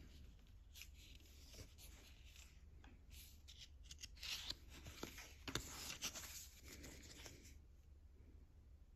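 Faint rustling, scraping and light clicks of Pokémon trading cards being handled and slid against one another, busiest from about three to seven and a half seconds in.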